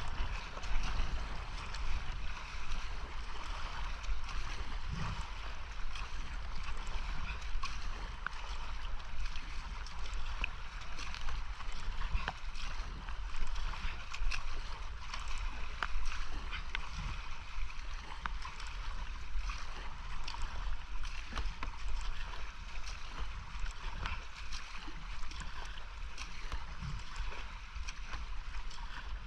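Whitewater creek rapids rushing steadily around a kayak, with frequent short splashes and ticks from paddle strokes and water hitting the boat and camera.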